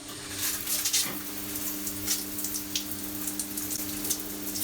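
Electric shower running on its cold setting: water spraying from the shower head, with a steady low hum alongside.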